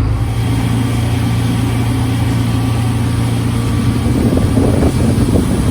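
Boat engine running steadily, a low even hum, growing a little rougher near the end.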